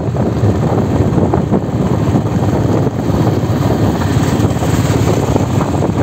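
Motorcycle running at riding speed, with rushing wind buffeting the microphone.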